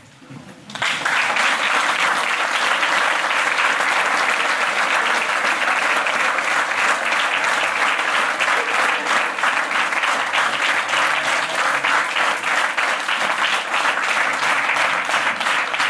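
Audience applauding, a dense steady clapping that starts suddenly about a second in and keeps up without a break.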